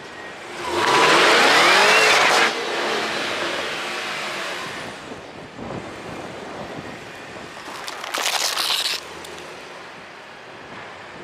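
Cadillac CT5-V sedan revving hard about a second in, its engine pitch rising as the tyres spin and squeal on the asphalt, cutting off sharply and dying away over the next few seconds. A second, shorter burst of throttle and tyre noise comes about eight seconds in.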